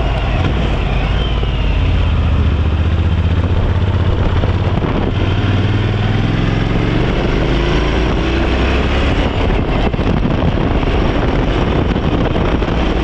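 Motorcycle engine running under way, with dense road and wind noise. About halfway through, its pitch rises as the bike accelerates.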